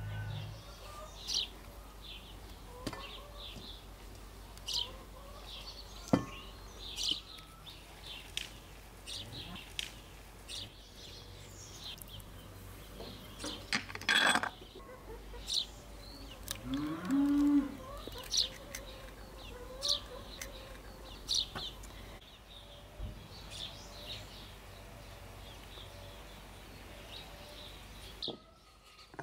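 A cow mooing once about halfway through, a call that rises and then holds. Small birds chirp throughout, and there is a sharp knock about six seconds in.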